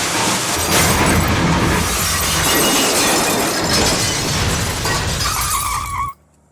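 Crash sound effect: loud, continuous shattering and breaking, like glass and debris, that cuts off suddenly about six seconds in.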